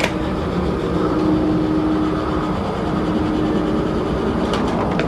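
A steady rumble with a constant low hum running under it, and a few sharp clicks near the end.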